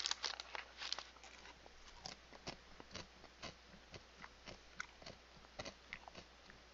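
A person chewing a mouthful of chicken close to the microphone, with soft, irregular mouth clicks and smacks about once or twice a second.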